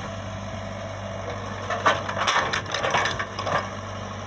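Komatsu PC75UU excavator's diesel engine running steadily, with a burst of cracking and crunching from about two seconds in, lasting under two seconds, as something is crushed or broken.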